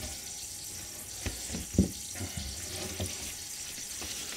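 Faint steady hiss of water seeping through a toilet's shutoff valve, with a few soft taps, the sign that the valve may not be shutting off all the way.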